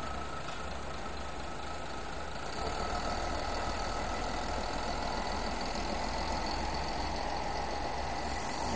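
Diesel railcar engine running steadily as the train pulls slowly out of the station, growing louder about two and a half seconds in.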